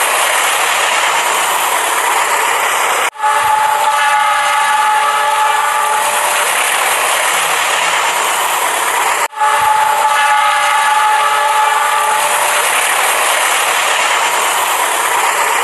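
Battery-powered toy train running along its track: a steady, loud whirring and rattling of the motor and wheels with a whine that comes and goes. The sound breaks off abruptly twice, about three and nine seconds in.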